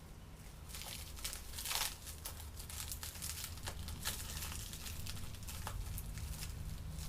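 Wrapping being crinkled and torn by hand as a motorbike engine part is unwrapped: irregular crackles and rustles, the loudest about two seconds in, over a steady low hum.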